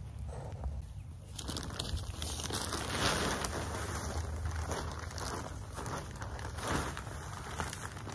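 Scraping and rustling in soil and fallen leaves, starting about a second and a half in, as a planting hole is dug without a shovel.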